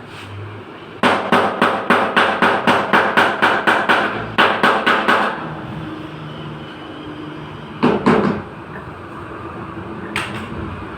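Hammer beating out dents in a crash-damaged Alto's sheet-metal body panel: a fast run of blows, about four a second for some four seconds with a short break in the middle, then a couple of single blows later on.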